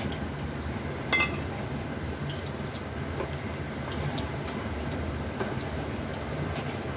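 Oil poured into a cast-iron appe (paniyaram) pan, with one sharp ringing clink about a second in and scattered light ticks over a steady low hum.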